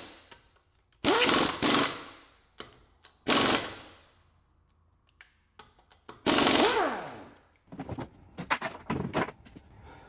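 DeWalt cordless driver running in short bursts to back screws out of a Power Wheels Dune Racer's plastic body. Four bursts, each winding down at the end, followed by light clicks and rattles near the end.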